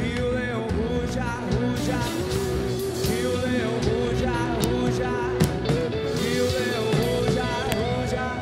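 A live rock band playing: electric guitar, keyboard and drums, with a voice singing a melody over them.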